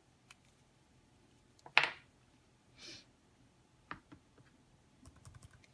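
Quiet room with a few small clicks and taps: one sharp click a little under two seconds in, a short soft hiss about a second later, another click near four seconds and a few faint ticks near the end.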